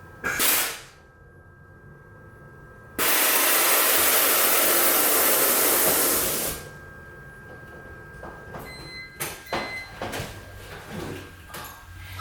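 A loud, steady hiss of rushing air lasting about three and a half seconds, starting a few seconds in, with a short burst of it near the start and scattered light clicks and knocks afterwards.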